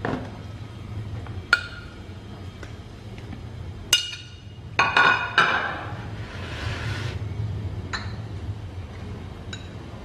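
Metal spoon clinking against ceramic dishes: a few sharp clinks with a short ring, three of them close together about five seconds in, followed by a brief scraping sound.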